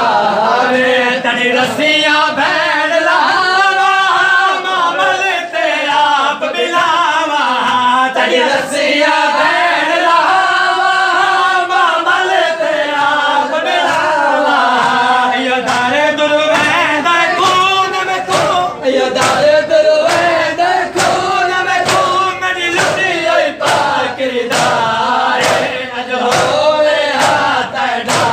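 A crowd of men chanting a noha, a Shia mourning lament, together, with the rhythmic slaps of matam chest-beating, which become sharper and more regular in the second half.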